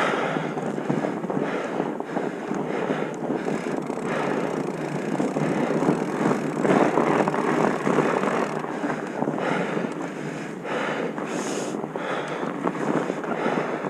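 Wind rushing over the microphone, rising and falling in gusts without a break.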